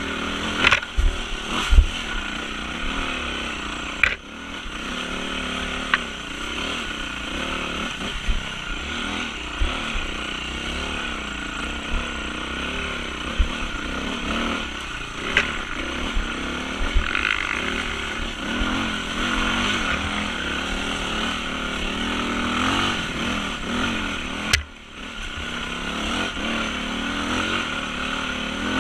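Yamaha WR450F single-cylinder four-stroke dirt bike engine revving up and down under constantly changing throttle while ridden hard on a rough trail, with scattered sharp knocks and clatter from the bike over the ground. The engine note falls away briefly twice.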